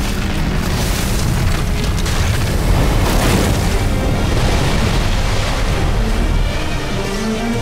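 Dramatic film score over storm-and-flood sound effects: heavy pouring rain and deep rumbling booms, swelling about three seconds in as the wall of water surges.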